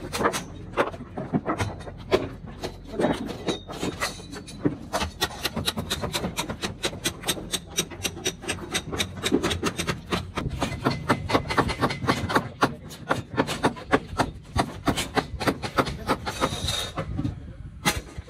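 Irregular sharp knocks and clatter, several a second, from construction work on timber formwork and steel scaffolding, with a brief lull near the end.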